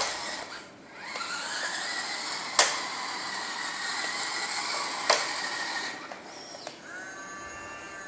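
Toy RC bulldozer's small electric motors and plastic gearing whirring as it is driven, with a rising whine as it starts up about a second in and two sharp clacks partway through.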